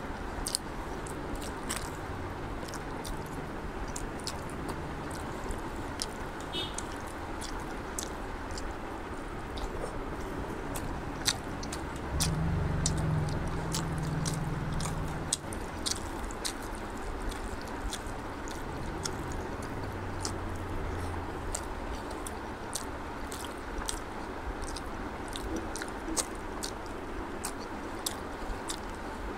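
Close-miked eating: wet chewing and lip smacking of rice and egg curry eaten by hand, with many small sharp mouth clicks throughout and the squish of fingers mixing the rice. A low hum grows louder for about three seconds near the middle.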